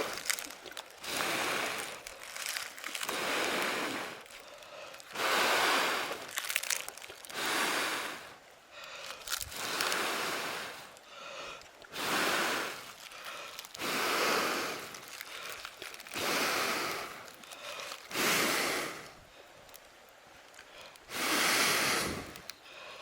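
Rhythmic rustling strokes, about one every two seconds, each lasting about a second.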